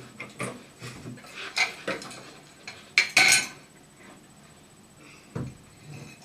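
Hand ball pump being worked to inflate a small plastic ball: a few uneven strokes, each a short rush of air with some clattering, the loudest about three seconds in.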